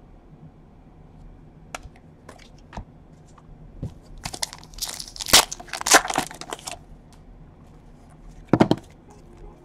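Trading-card pack wrapper being torn open and crinkled by hand. A few light clicks come first, then a dense run of crinkling and tearing that is loudest around the middle, and one more short crinkle near the end.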